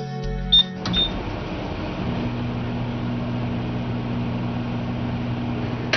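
Countertop microwave oven with a mechanical dial timer being started to heat water: two short high ticks as the dial is turned, then the oven switches on and runs with a steady hum.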